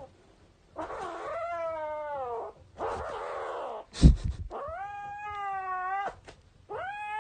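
Cat yowling in three long, drawn-out calls, each lasting over a second. The first call rises and then falls; the other two are held steady. A short sharp knock comes about four seconds in.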